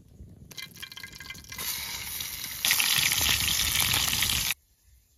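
A rushing, hiss-like noise that grows louder in steps and stops abruptly about four and a half seconds in.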